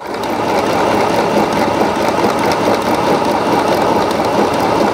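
Mini portable 505 electric sewing machine starting up and running at a steady speed, its needle stitching a zigzag-type pattern (pattern 12) through cotton fabric.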